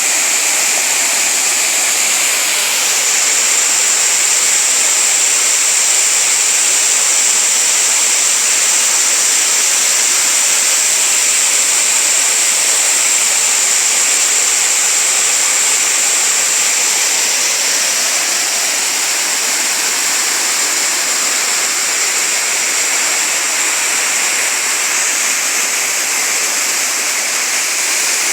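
Waterfall: water cascading and rushing steadily in a constant dense hiss, with the flow of a stream running below it.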